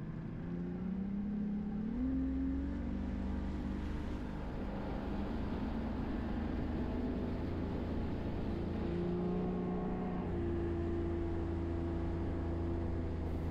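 Motor engine running steadily, its pitch stepping up and down a few times as the throttle changes.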